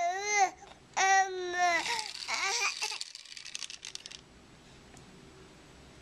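Baby babbling in drawn-out, high-pitched 'mama'-like syllables, two of them in the first two seconds. A weaker syllable follows and trails off into a crackly, raspy breath that stops about four seconds in.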